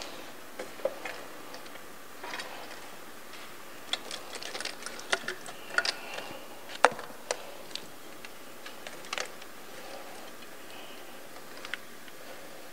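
Irregular sharp clicks and light plastic rattles of hand work in an engine bay, as hoses and plastic connectors are pulled off the top of the engine. The loudest click comes about seven seconds in.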